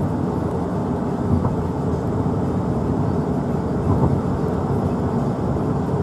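Steady low rumble of a moving road vehicle, with road and engine noise and no distinct events.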